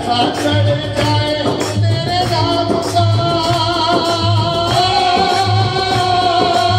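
Male singer performing a Khatu Shyam devotional bhajan through a microphone and PA, with electronic keyboard accompaniment and a steady low beat. About three seconds in he holds a long note to the end.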